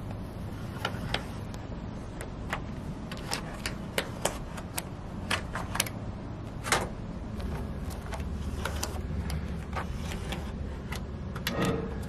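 Scattered sharp clicks and light taps of a steel straightedge and marker against a corrugated metal roofing panel while a cut line is marked, over a steady low rumble. Near the end comes a louder, ringing metal clank as a circular saw is set down on the panel.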